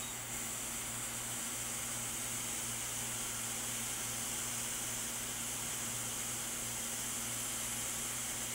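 Steady hiss of blowing air from workbench equipment, with a low electrical hum underneath; it grows a little louder just after the start and then holds even.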